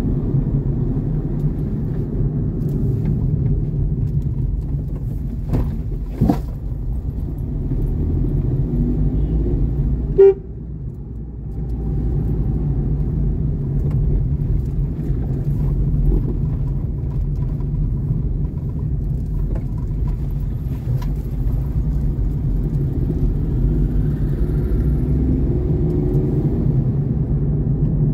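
Steady low rumble of a vehicle driving on the road, with a short horn toot about ten seconds in.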